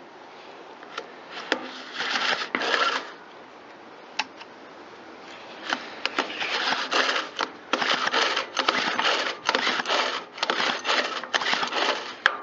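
Stihl KM130R 4-Mix engine being pulled over on its recoil starter rope: two pulls, then a quick run of short pulls about two a second, with sharp clicks between. The engine turns over without firing. There is no spark, and it is really difficult to pull over from sitting so long.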